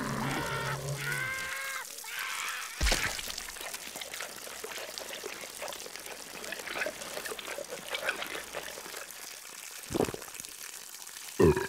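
Liquid pouring and trickling steadily, with small drips. In the first two seconds there is a short wavering pitched call, about three seconds in a sharp thud, and near the end two dull thumps.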